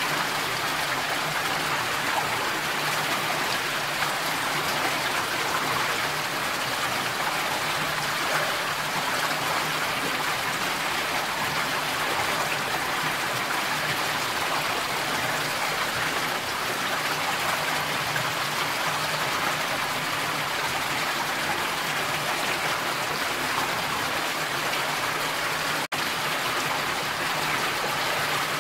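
Steady rushing water noise with no animal calls, cutting out for an instant near the end.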